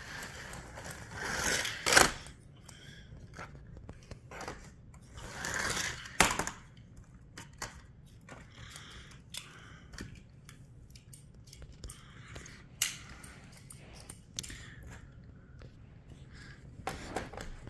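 Plastic clicks and short scrapes from toy race cars and track pieces being handled, with the sharpest knocks about two and six seconds in.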